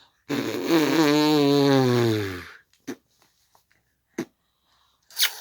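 A long, low buzzing vocal noise lasting about two seconds and sliding down in pitch, followed by a few short, faint clicks.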